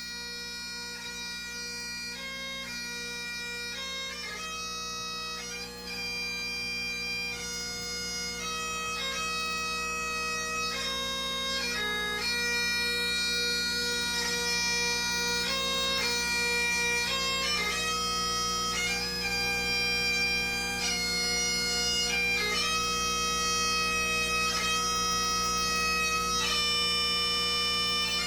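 Bagpipe playing a slow melody of held notes over its steady drones, growing louder over the first dozen seconds.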